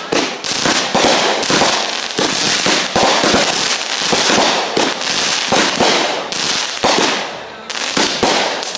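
Fireworks going off in rapid succession: a dense string of loud bangs, one after another, with a short lull near the end.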